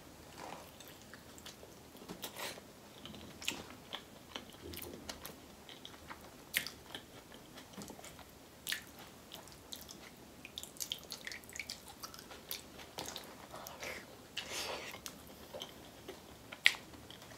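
Chewing and biting of seafood boil food, starting on a sauce-soaked potato, heard as irregular mouth clicks and smacks. A sharp click near the end is the loudest sound.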